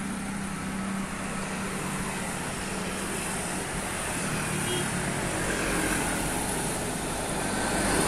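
Road traffic: a bus engine running as it pulls away, then a light truck passing close with its engine running, over steady traffic noise. Motorcycles approach near the end, and the level swells as they come close.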